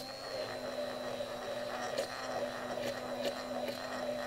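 Electric immersion blender running steadily in a tall glass jar, emulsifying an egg-yolk Caesar dressing as sunflower oil is poured in bit by bit. A steady motor whine with a few light clicks.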